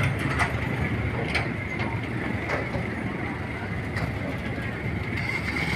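Pickup truck moving slowly over rough ground with its engine running, its body and metal stock rails rattling and giving a few sharp clanks.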